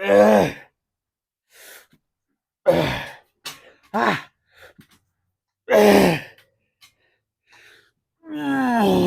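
A man's strained grunts and groaning exhales from the effort of heavy leg-extension reps. There are about five, a second or two apart, several falling in pitch, with the longest near the end.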